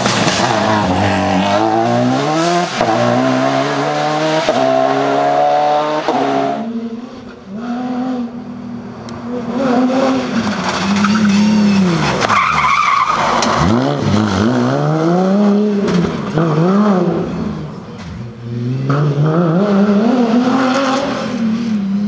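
Rally car engines at full throttle. In the first six seconds the engine climbs hard through several quick upshifts. After that, a Porsche rally car revs up and down through corners with a tyre squeal about halfway through.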